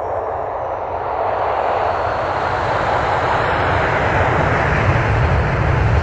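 A swelling whoosh sound effect for an animated logo: a rush of noise that grows louder, with a deep rumble building underneath toward the end.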